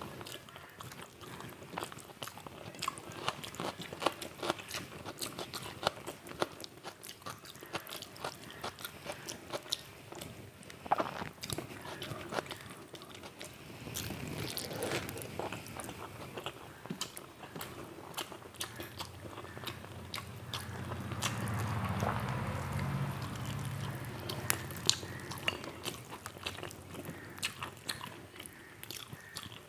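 Close-miked eating: a person biting and chewing crisp fried food with panta bhat (soaked rice), giving many irregular crunches and wet chewing sounds. A low humming sound runs for a few seconds past the middle.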